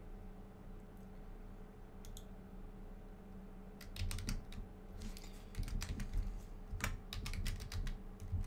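Typing on a computer keyboard: a quick, uneven run of keystrokes that starts about four seconds in, over a low steady hum.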